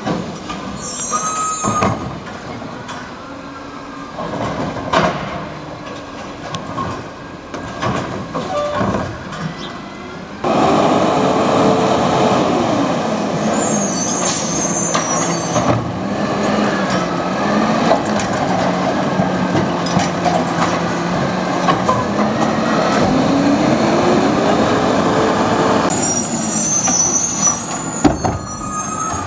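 Peterbilt 320 garbage truck with a Wayne Curbtender body working at the curb. Scattered knocks and bangs come first. About ten seconds in, a loud stretch of engine and machinery noise starts suddenly, its pitch falling, holding steady, then rising before it cuts off a few seconds before the end. Short hisses come and go.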